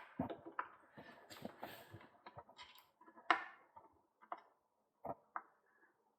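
Scattered small clicks and knocks of tools and bike parts being handled during bolt-tightening on a bicycle build, the loudest knock about three seconds in and the sounds thinning out toward the end.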